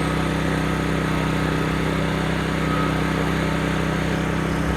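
Genmax GM12000ED dual-fuel generator's 458cc engine running steadily on propane at full speed, as it has no eco mode, with an even, unchanging hum.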